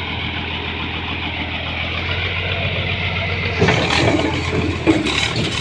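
Diesel engine of heavy construction machinery running steadily with a constant low hum. About two-thirds of the way through, a rougher, hissier noise joins it.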